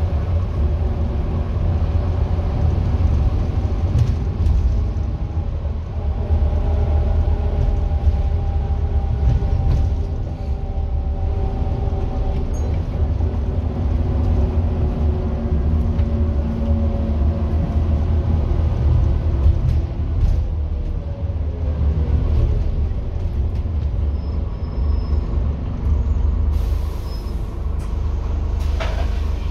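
Scania N230UD double-decker bus heard from inside: its five-cylinder diesel engine running under way with a low rumble over road and body noise, the engine note rising and falling with speed and gear changes. Near the end, short hisses of air from the air brakes.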